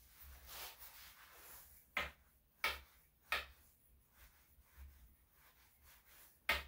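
A grooming comb worked through a Yorkshire Terrier's coat to get out tangles and small mats: a soft rustle, then quick scraping strokes, three close together about two seconds in and one stronger one near the end.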